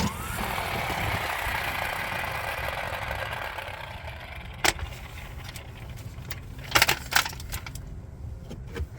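Cordless 12 V impact wrench hammering steadily, its sound tailing off over the first few seconds, followed by a few sharp metallic clanks.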